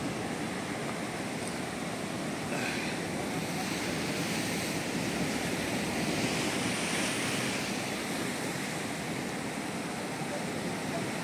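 Ocean surf breaking on a rocky reef shore at high tide with big waves, a steady rushing wash that swells a little for a few seconds midway.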